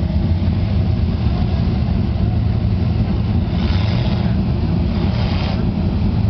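Lifted full-size mud truck's engine running at low speed, loud, deep and steady, as the truck crawls across rough dirt. Two brief hissing noises come through over it, about three and a half and five seconds in.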